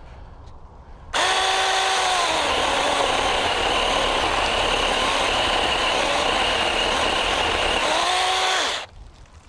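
Small 6-inch electric chainsaw starting at full speed and cutting into a tree trunk. Its motor pitch drops as the chain bites into the wood, rises again as it comes free, and then the saw stops abruptly.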